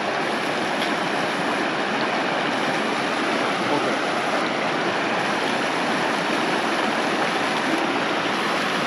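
Fast, shallow mountain stream rushing over stones: a steady, unbroken rush of water.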